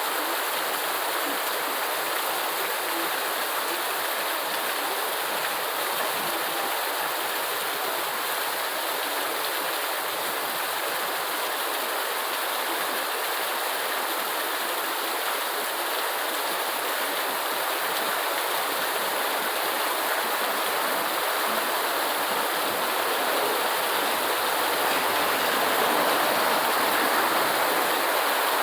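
Steady, unbroken rain noise, a continuous hiss of falling water, growing a little louder near the end.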